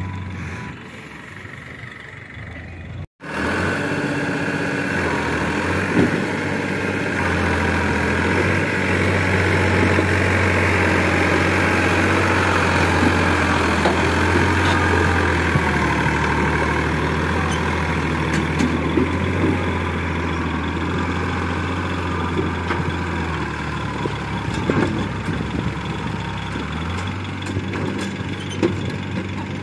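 New Holland tractor's diesel engine running steadily, heavier through the middle and easing back near the end. About three seconds in, the sound drops out for an instant.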